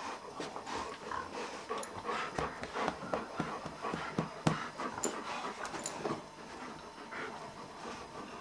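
Dogs panting and scuffling as a black German shepherd and a white puppy tussle over a plush toy, with irregular soft knocks and a few short high clicks around the middle.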